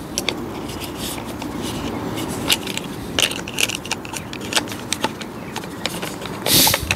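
Small plastic and metal parts of a mini cordless chainsaw clicking and knocking as they are handled and fitted together. Scattered short clicks over a steady rustling background, with a brief louder scrape near the end.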